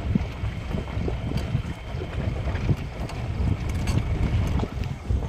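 Off-road vehicle driving slowly along a rough dirt forest track: a low, uneven rumble of engine and tyres with scattered knocks and rattles from the bumps, and wind on the microphone.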